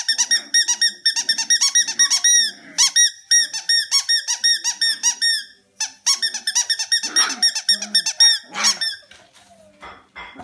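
A squeaky dog toy squeezed rapidly again and again, several squeaks a second, each rising then falling in pitch, to call puppies over. The squeaking breaks off briefly about halfway and stops shortly before the end.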